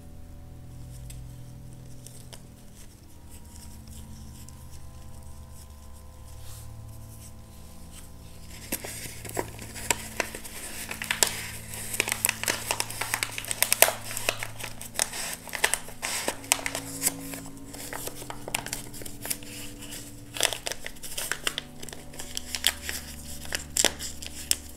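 Paper crinkling and rustling as it is folded and creased by hands in nitrile gloves, starting about a third of the way in as dense, irregular crackles.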